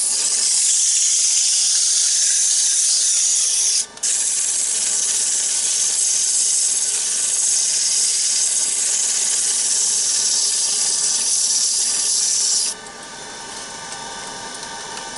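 100-grit sandpaper held against a wooden egg cup spinning on a wood lathe, giving a steady, loud hiss. The paper lifts off for a moment about four seconds in. The sanding stops near the end, leaving the lathe's motor humming.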